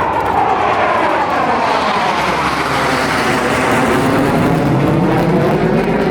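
Sukhoi Su-30 fighter jet flying past, a loud, steady jet roar whose tone sweeps downward in pitch as it passes.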